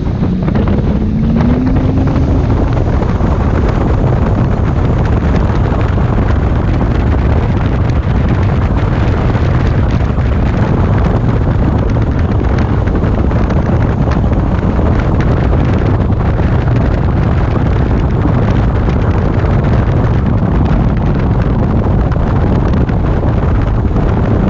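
Wind buffeting the microphone over the Evinrude E-Tech 150 two-stroke outboard driving an aluminum bass boat at speed across choppy water. The engine note rises over the first couple of seconds as the boat accelerates, then holds steady.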